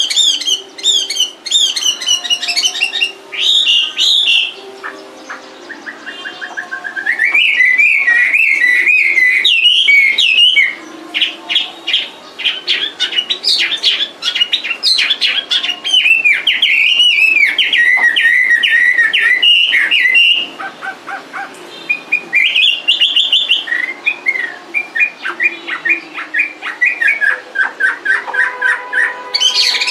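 Caged Chinese hwamei singing: a long, varied run of loud whistled phrases and fast repeated notes, broken by two short pauses, about five seconds in and again about twenty seconds in.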